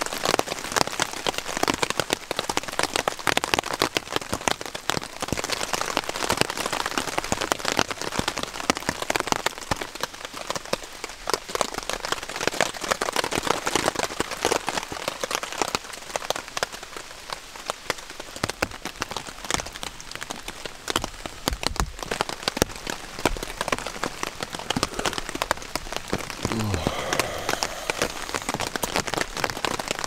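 Steady rain pattering on a tarp and the forest floor, full of sharp, close drop ticks. A brief low falling tone comes near the end.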